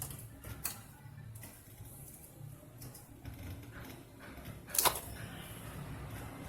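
Small clicks and knocks from handling parts while a TV's circuit board is remounted, with one sharp click about five seconds in.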